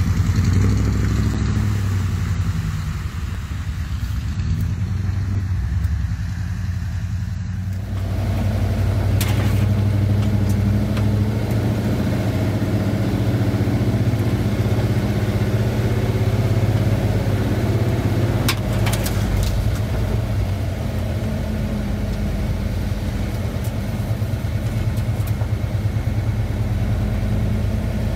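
1985 Ford Bronco's engine running steadily while driving off road. About eight seconds in, a broader noise fills in over the engine, with a few knocks and rattles.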